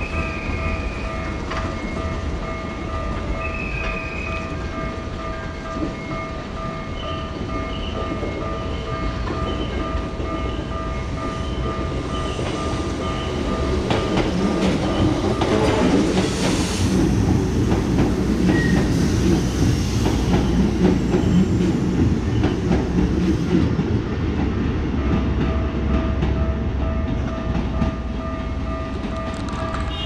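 Japanese level-crossing alarm ringing with its steady repeating electronic bell. About halfway through, a Keikyu train passes over the crossing: a loud rumble with wheels clattering over the rail joints drowns the bell for several seconds. The train then runs away, and the bell is heard clearly again near the end.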